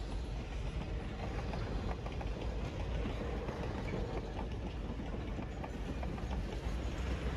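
Reading & Northern steam-hauled excursion train rolling past on the rails: a steady heavy rumble with a continuous clatter of wheels over the track.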